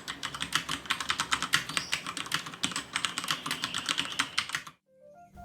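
Fast typing on a Cherry MX 3.0S mechanical keyboard with Cherry MX Red switches: a rapid, dense run of key clicks that stops abruptly near the end. Soft music notes come in just before the end.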